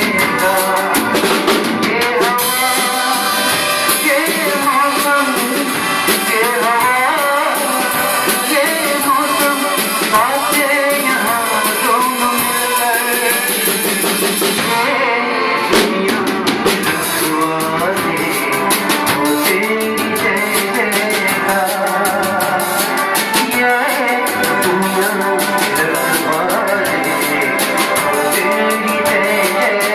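Live band music: acoustic guitar, electronic keyboard and a drum kit with busy cymbals over a steady beat. The cymbals drop out briefly about halfway through, then come back in with a crash.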